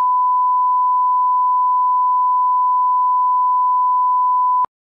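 A 1 kHz line-up test tone that goes with SMPTE colour bars: one unbroken steady beep at a single pitch, cut off sharply with a click near the end.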